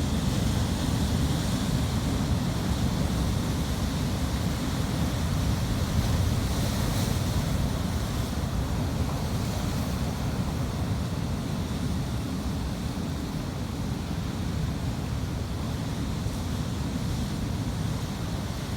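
Ocean waves breaking on a shore: a steady wash of surf with a slight swell about six seconds in.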